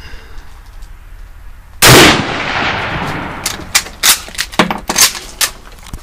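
A single shot from a Mosin-Nagant 7.62×54mmR bolt-action rifle about two seconds in, with a long echo fading over the next second and a half. It is followed by a quick run of sharp metallic clacks as the bolt is worked by hand, struck open with the fist and the spent case ejected.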